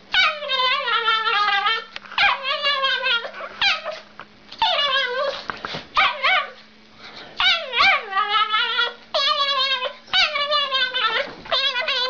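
A dog whining and howling in a string of about ten long, high, wavering calls, each up to a second or so with short breaks between them, over a faint steady hum.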